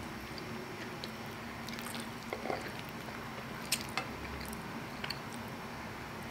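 Close-miked chewing of a mouthful of macaroni and cheese: soft, wet, squishy mouth sounds, with a few short sharp clicks, the loudest a pair a little under halfway through.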